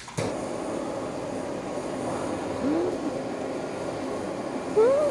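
Steady mechanical drone in the room, with a short rising 'mm' hum from a woman chewing a mouthful of sushi near the end.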